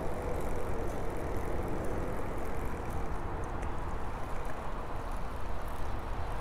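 Fixed-spool fishing reel being wound steadily while a hooked fish is played in, over a steady low rumble.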